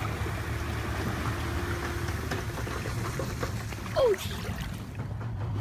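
Water flowing and trickling, with a low steady rumble under it. About four seconds in there is one short high sound that falls in pitch.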